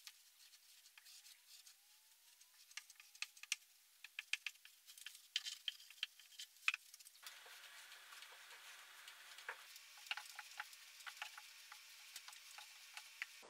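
Faint, irregular crackling and light ticks from handling loose cellulose fiber insulation and wood panels as the oven's side channels are packed.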